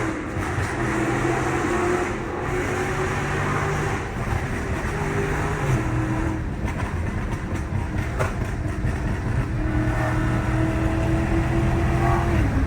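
Dodge Charger Scat Pack's 6.4-litre HEMI V8 pulling under acceleration, its pitch climbing slowly, dropping sharply about six seconds in at an upshift, then climbing again and dropping once more near the end.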